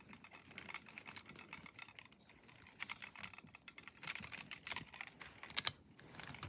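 Light, irregular plastic clicks and rattles from a Transformers Grindor action figure being handled, its joints worked as it is set up to stand. There is a sharper click a little after five seconds.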